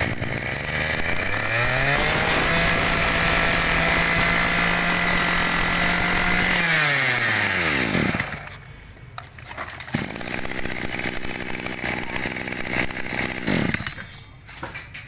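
A 23cc two-stroke brush cutter engine revved up to full throttle, held there for about four seconds, then let off and winding down to a stop. About two seconds later it starts again, runs at a low idle for a few seconds, and dies away.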